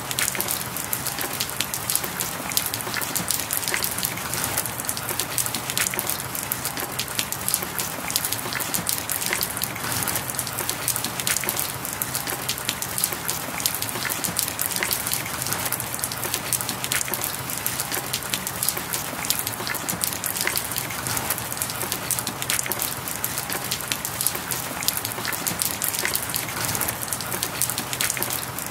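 Steady rain falling on a surface: a dense patter of drops over an even hiss, the cover sound of a subliminal recording.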